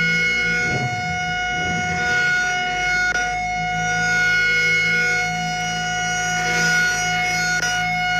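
Outdoor tornado warning siren sounding a steady, fully wound-up tone that holds its pitch, its loudness swelling and fading slowly every couple of seconds.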